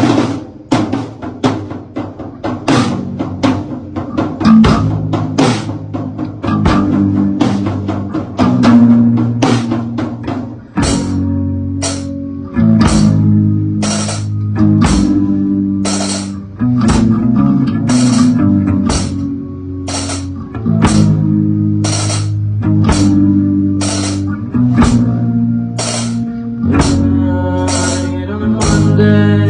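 A small rock band playing live: drum kit, bass guitar and guitar, with no singing. About ten seconds in the full band comes in louder, with heavy bass notes under a steady drum beat.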